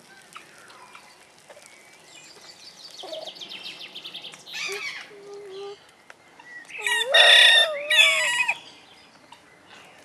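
A large fowl calls loudly about seven seconds in: a two-part call with a pitch that rises at the start. Before it comes a fast run of short chattering bird notes.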